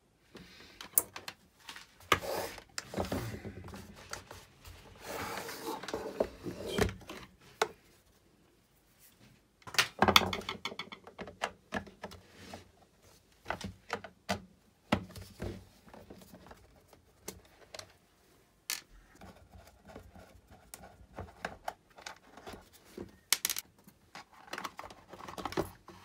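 Irregular clicks, knocks and scraping of a small space heater's plastic housing being handled and taken apart, with a screwdriver and a plastic pry tool against the plastic case.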